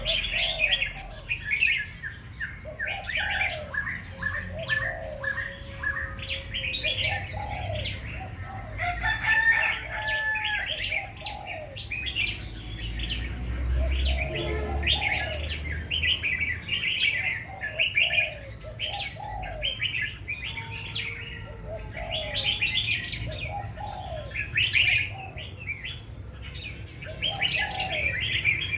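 Songbirds singing: repeated bursts of quick, high chirping notes, with lower whistled phrases in between, going on steadily.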